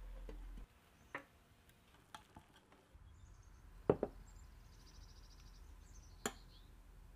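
A few sharp knocks from cookware being handled: light ones early, then a loud double knock about four seconds in and another near the end.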